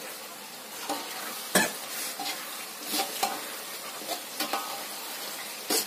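Chicken in sweet soy sauce sizzling in an aluminium wok as the sauce cooks down and thickens, with sharp metallic clanks of the aluminium lid being lifted off and handled, the loudest about one and a half seconds in.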